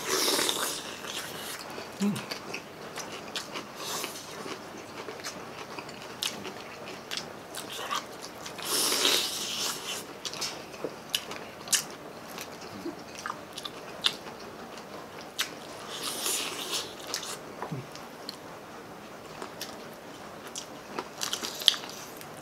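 Close-up eating of crispy fried chicken drumsticks and crispy pata (deep-fried pork knuckle): crunchy bites and wet chewing with many small clicks. The loudest crunches come about a second in, around nine seconds in and around sixteen seconds in.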